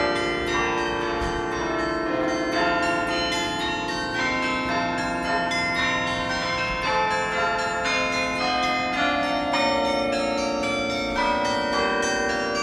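Carillon being played: a melody of tuned bronze bells struck one after another, with many notes ringing on and overlapping.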